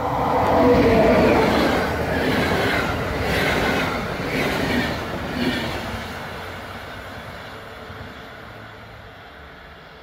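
PKP Intercity passenger train hauled by an EP07 electric locomotive passing at speed. It is loud at first, with a rhythmic clatter of wheels over rail joints and a steady whine underneath, then fades away after about six seconds.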